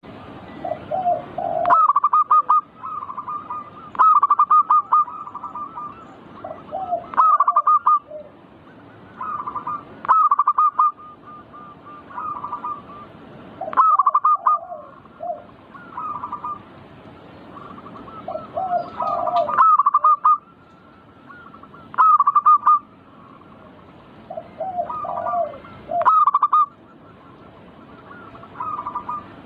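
Zebra dove (perkutut) singing its cooing song: short trilled phrases of staccato coos, repeated every two to three seconds.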